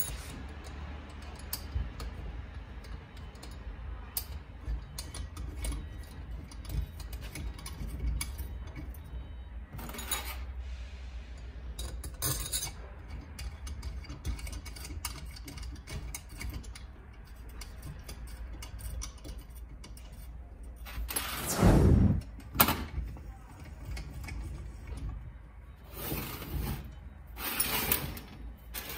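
Small metal clicks and clinks of scooter engine parts being handled as an aluminium cylinder is worked onto its studs by hand. About three quarters of the way in comes the loudest sound, a short scrape with a couple of knocks as the engine case is moved on the metal bench.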